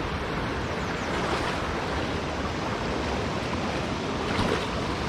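Running water of a small trout stream rushing steadily into a pool, an even whoosh, with a slight swell about four and a half seconds in.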